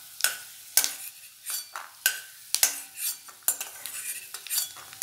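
A steel spoon scrapes and clinks against a stainless steel kadai as roasted peanuts are scooped out of the oil. The clinks are irregular, and some ring briefly.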